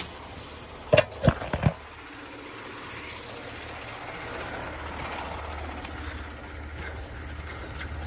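A few sharp knocks about a second in, then a steady low rumble of a vehicle engine running.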